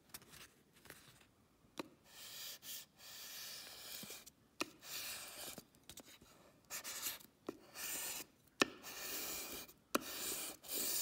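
Vinyl squeegee rubbing transfer paper down onto cut vinyl lettering to burnish it, a series of dry, scratchy back-and-forth strokes with small clicks between them, starting about two seconds in.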